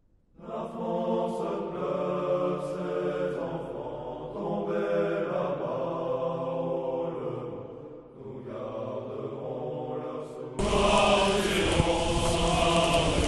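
A large group of men singing together in slow, held phrases, with a short break between phrases every few seconds. About three seconds before the end the sound jumps louder and fuller, where a different recording of the singing begins.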